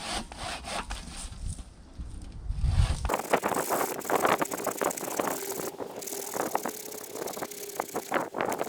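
Handsaw cutting through a small spruce log, a rapid series of rasping strokes. Before that, wind buffets the microphone with a low rumble; the sound changes abruptly about three seconds in.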